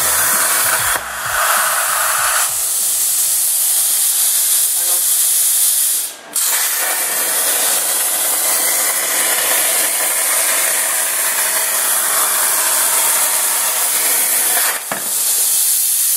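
Hypertherm Powermax 85 plasma cutter's machine torch cutting steel plate on a CNC table: a loud, steady hiss of the plasma arc and its air jet. It breaks off for a moment about six seconds in and again near the end.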